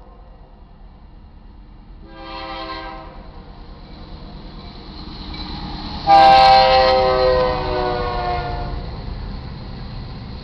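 Horn of a BNSF GE C44-9W diesel locomotive sounding for a grade crossing: a short blast about two seconds in, then a loud long blast starting suddenly about six seconds in that drops slightly in pitch as the locomotive passes. Under it, the rumble of the approaching freight train grows louder.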